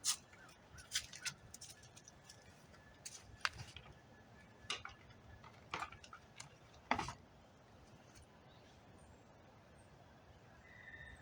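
Scattered light clicks and taps from plastic door handle covers being handled, about ten over the first seven seconds, then faint background.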